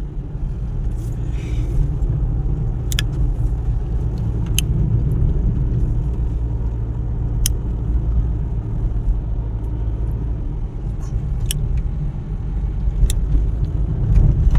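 Steady low road rumble of a moving car, heard from inside, with a few faint rattling clicks.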